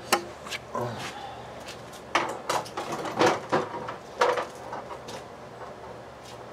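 A scatter of short knocks and clatters from tools and parts being handled. They come thickest between about two and four and a half seconds in.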